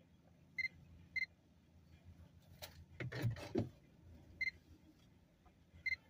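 Several short, high-pitched chirps or beeps, most in pairs about half a second apart, with a brief louder clatter about halfway through.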